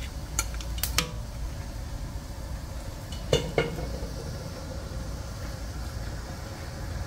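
Metal spatula knocking and scraping against a large aluminium wok, giving a few sharp clinks with a short ring: a couple about a second in and two more around three and a half seconds in. Under them is a steady low rumble.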